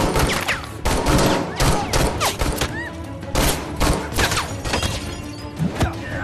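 Handgun shots in an action-movie shootout, fired in quick clusters of several at a time and thinning out near the end, over a driving action-score soundtrack.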